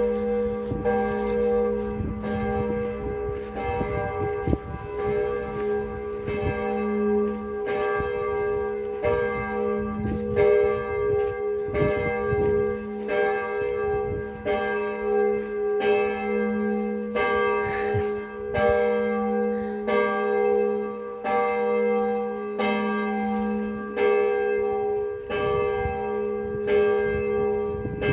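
Church bells ringing: several bells at different pitches struck in a steady, even rhythm, their tones ringing on and overlapping between strikes.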